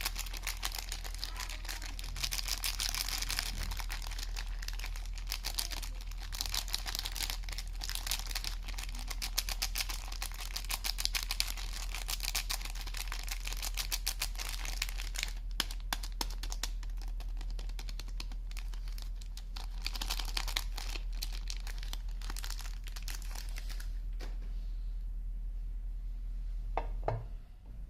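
Soap wrapping being torn and crinkled open by hand: a dense, crackling rustle of packaging that thins out near the end.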